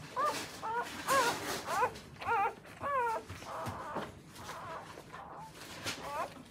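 Newborn Akita puppies crying in short, high squeaks that bend up and down, a quick string of them in the first three seconds and fewer after, as the mother licks them to help them relieve themselves.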